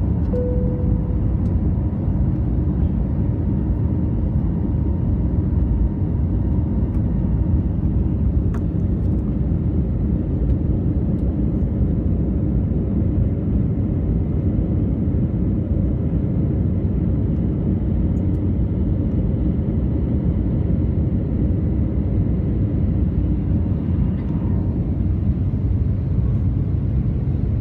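Airbus A321neo cabin noise: the steady, low rumble of engines and airflow heard inside the airliner's cabin.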